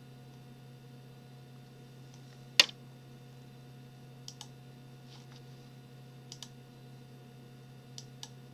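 A few light clicks at a computer, mostly in close pairs, over a steady low electrical hum, with one much louder sharp click about two and a half seconds in.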